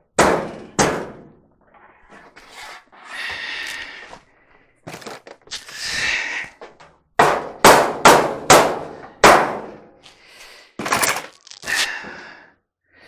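Knocks and clangs of the dryer's sheet-metal cabinet parts being shifted and handled while a misaligned panel is worked into line. The blows come irregularly and are densest about halfway through, some with a short metallic ring, between a couple of scraping sounds.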